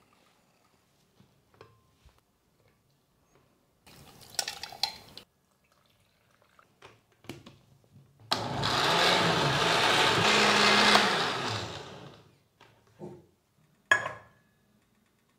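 Countertop blender running for about four seconds, blending chiles and tomato in liquid; its motor climbs in pitch as it starts and trails off as it stops. Near the end comes a sharp clank as a stainless steel saucepan is set down on an electric hot plate.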